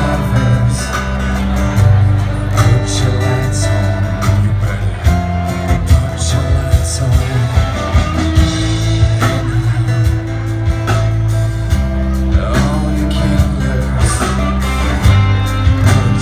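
Live band playing a passage without clear lead vocals: guitar over held bass notes that change every few seconds, with a steady beat of drum hits.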